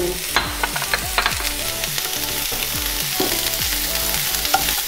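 Chopped onion and green, red and yellow capsicum sizzling in hot oil in a pan, stirred with a spatula, with frequent light clicks against the pan.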